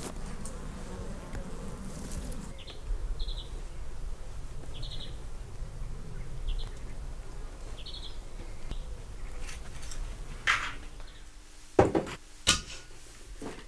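Soft rustling footsteps on grass for the first couple of seconds. Then short, high, fast-pulsed chirps of an insect or small bird, repeated every second or two. Near the end, after a cut indoors, a few sharp knocks and clinks are the loudest sounds, over a faint steady hum.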